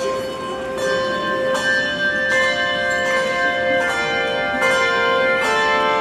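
Handbell choir playing: groups of handbells struck together in chords about every 0.8 seconds, each left ringing on under the next.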